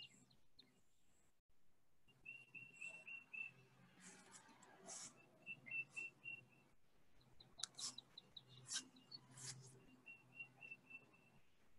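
Faint birdsong: several runs of quick, repeated, high chirps. A handful of brief scratchy strokes of a pencil on drawing paper stand out in the middle and later on.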